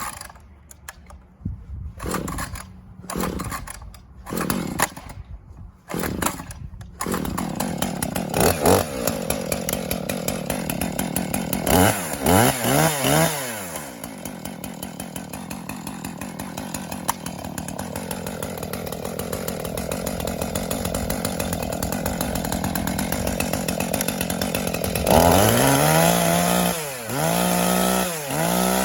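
Brand-new Husqvarna 450e Rancher two-stroke chainsaw being cold-started with the choke set. Several short pulls on the starter cord come first, and the engine catches about seven seconds in. It is then blipped a few times, settles to a steady idle, and is revved up and down repeatedly near the end.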